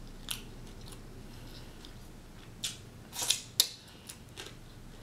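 A few short, sharp clicks scattered through, clustered around three seconds in and loudest about three and a half seconds in, over a faint steady room hum.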